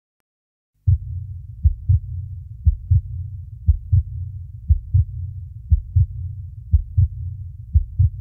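Heartbeat sound opening a song: low double thumps, lub-dub, about once a second over a low rumbling drone, starting about a second in after silence.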